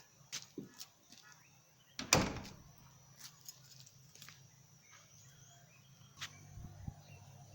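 A sharp knock about two seconds in, with a few lighter clicks before and after it, from a wooden door and its mortice lock being worked on.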